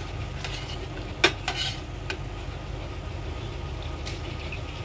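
Metal tongs clinking against a stainless steel pan as deep-fried bread slices are lifted out of hot ghee, over a low sizzle of frying. One sharp clink comes about a second in, with a brief clatter right after it.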